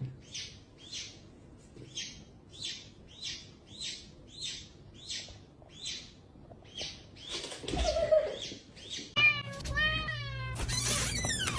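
A cat meowing twice near the end, the second meow high and loud, after a run of short breathy rustling sounds at about two a second.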